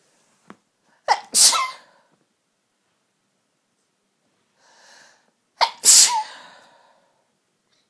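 A person sneezing twice, about four seconds apart. Each sneeze is a short sharp catch followed at once by a loud explosive burst, and a soft intake of breath comes just before the second.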